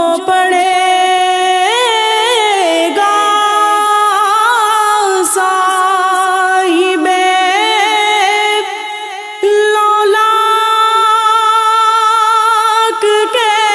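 Wordless female vocalising of a naat intro, with no instruments: a melodic line of long, wavering, ornamented held notes over a steady sustained vocal drone.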